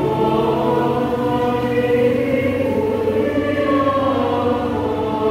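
Choir singing a slow liturgical hymn in long held notes.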